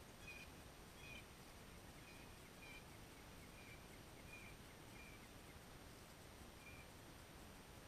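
Near silence, with a bird chirping faintly: short high notes every half second to a second, stopping shortly before the end.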